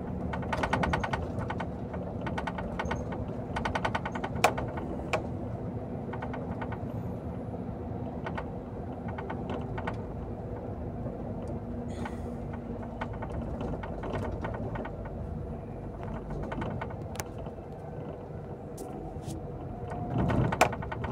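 Vehicle driving, heard from inside the cabin: a steady engine drone with a low hum, two spells of rapid rattling and scattered sharp clicks, and a brief swell in loudness near the end.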